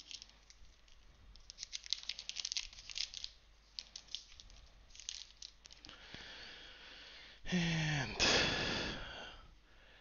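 A booster pack's plastic wrapper being torn open and crinkled, in quick bursts of crackling, as the cards are pulled out.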